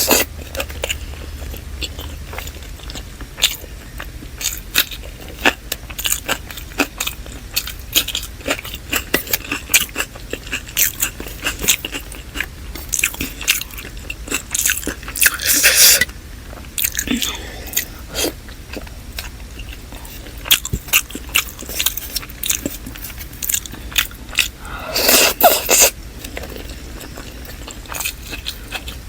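Close-miked ASMR eating of chicken dum biryani: a steady run of wet chewing and biting clicks, with two louder, longer stretches of crunching about halfway through and near the end.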